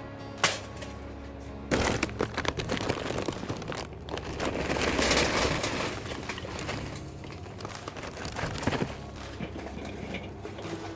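Charcoal poured from a bag into a metal chimney starter on a kettle grill: a long rattling, crackling clatter of coals tumbling against the metal, loudest about halfway through. A few sharp knocks come before and after it.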